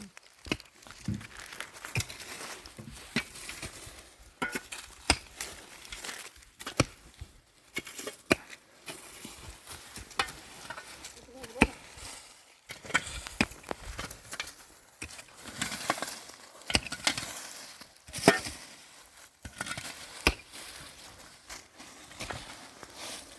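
Irregular knocks and clicks of hand building work, with rustling and crinkling in between.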